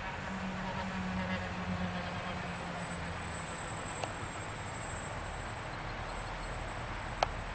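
Steady low drone of the Airbus A400M's four turboprop engines overhead, a little stronger in the first couple of seconds. Two short, sharp clicks come partway through and near the end.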